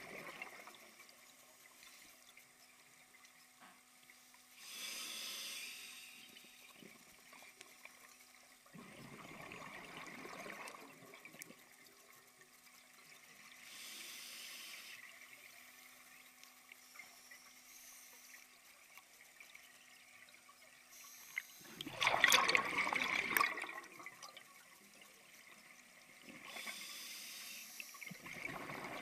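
Scuba regulator breathing heard underwater: a hissing inhale through the demand valve, then a gush of bubbling exhaust on each exhale, one breath roughly every ten seconds. The loudest bubbling exhale comes about three-quarters of the way through.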